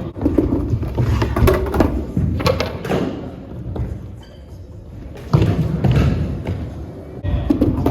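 Repeated thumps and knocks over a low rumble. It drops quieter about four seconds in and comes back suddenly a little after five seconds.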